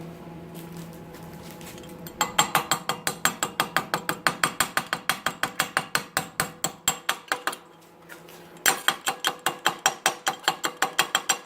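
Chipping hammer knocking slag off fresh stick welds on steel: rapid sharp metal taps, about five a second, in two runs with a brief pause past the middle. A low steady hum comes before the tapping starts.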